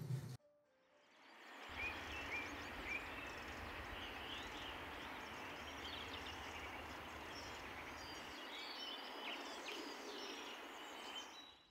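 Outdoor ambience: a steady wash of background noise, fading in at the start, with scattered short bird chirps.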